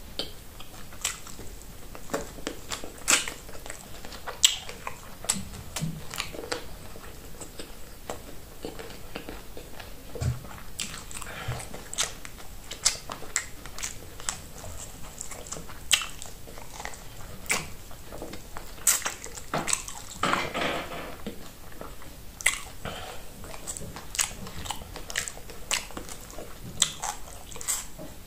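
A person chewing food close to the microphone, with many short sharp mouth clicks and smacks throughout. Near the end the fingers are put to the mouth and sucked.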